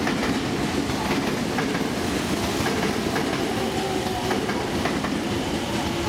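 Tobu 10030-series electric commuter train running away over the tracks and pointwork, a steady rumble with faint clicks of wheels on rail joints.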